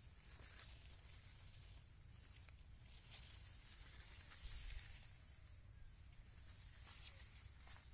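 A steady, high-pitched chorus of insects, such as crickets, buzzing in the field vegetation, with a few faint rustles of leaves brushing past.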